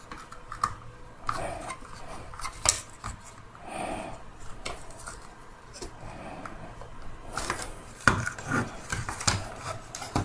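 Plastic clicks, knocks and rattles from a Dyson V10 cordless vacuum's motor housing being handled and worked by hand to free its cover. The clicks are scattered, with a sharp one about two and a half seconds in and a denser burst around eight seconds in.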